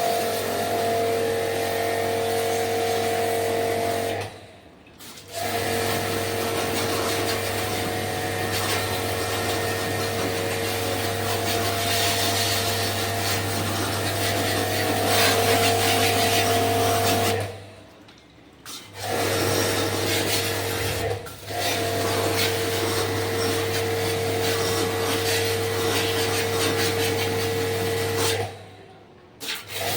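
A small electric motor-driven machine running with a steady hum and whine over a hiss, cutting out abruptly and starting again a few times.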